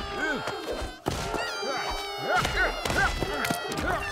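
Cartoon baby crying in repeated rising-and-falling wails, several overlapping.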